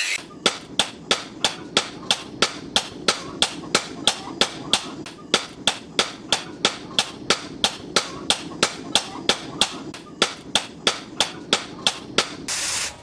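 A long run of sharp, evenly spaced knocks, about two and a half a second, each with a short metallic ring. A brief rush of noise comes near the end.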